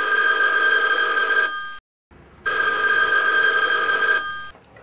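Telephone bell ringing: two long rings with a short gap between them, an incoming call that is answered right after.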